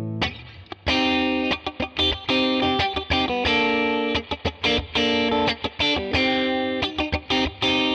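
TreeTone Songbird electric guitar played through an overdriven amp: a ringing chord is cut off just after the start, then a run of short, choppy chords with brief stops between them.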